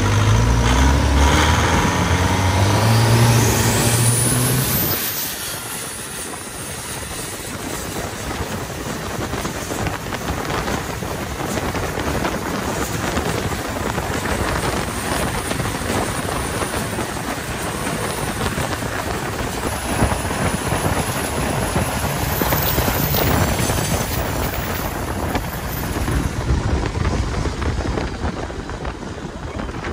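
Twin-turbo longtail boat engine running hard, with a rising whine, for the first few seconds; about five seconds in the low engine note drops away, leaving a steady rush of wind on the microphone and water spray from the speeding hull.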